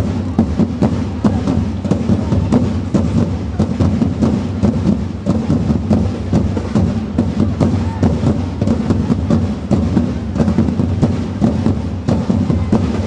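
Drums beating a rapid, steady rhythm to accompany a flag-throwing display.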